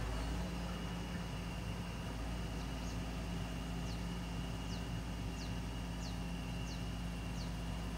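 Doosan excavator's diesel engine running steadily. From about two and a half seconds in, a high, short falling chirp repeats roughly every two-thirds of a second over it.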